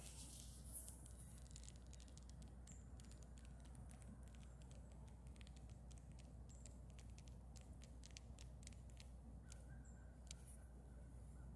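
Near silence: quiet woodland ambience with faint scattered ticks and clicks, and a faint high steady note near the end.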